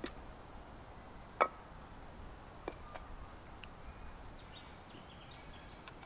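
Split firewood logs knocking as they are set one by one into a steel fire pit: several sharp wooden knocks, the loudest about a second and a half in.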